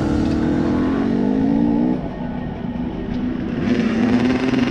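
Dirt bike engine running under throttle, its pitch rising a little, then dropping about two seconds in as the throttle is eased off.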